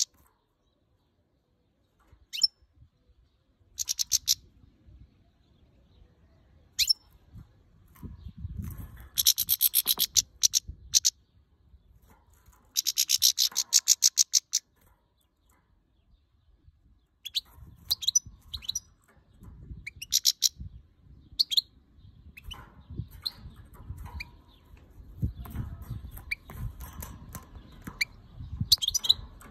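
Caged female European goldfinch calling: sharp single call notes and, around the middle, two fast chattering runs of high notes, which the owner takes for anger at the camera.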